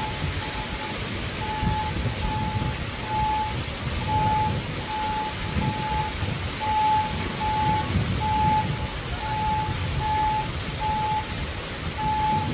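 A construction machine's backup alarm beeps steadily at one pitch, about two beeps a second, over a low rumble.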